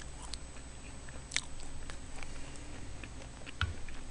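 Close-miked chewing of budae-jjigae (Korean army stew), with a few sharp clicks of chopsticks and spoon against the pot.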